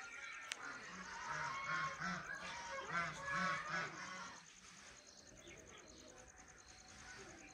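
Birds calling: a quick run of repeated pitched calls lasting about four seconds, then fainter.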